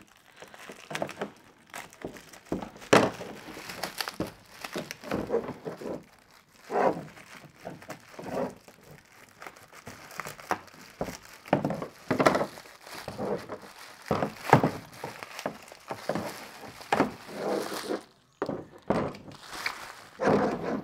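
Irregular handling noise from a kayak's rudder assembly being picked up and looked over: scattered knocks and thunks with some rustling.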